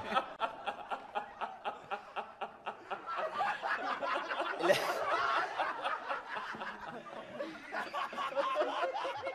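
A group of people laughing hard in quick repeated bursts, with one louder outburst about halfway through.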